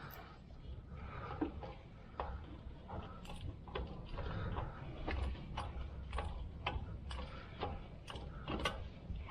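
Hand ratchet clicking in short strokes while tightening a fastener on a replacement starter: single sharp clicks at an uneven pace, about one or two a second. The ratchet is too long for the cramped space, so it moves only one tooth at a time.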